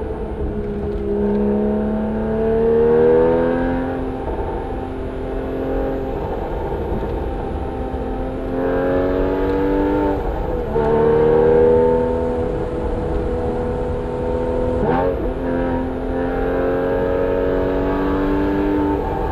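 Porsche 981 Cayman S's 3.4-litre flat-six through a Soul Performance aftermarket exhaust, accelerating: the revs climb and then drop back at gear changes several times. There is a short sharp crack about fifteen seconds in.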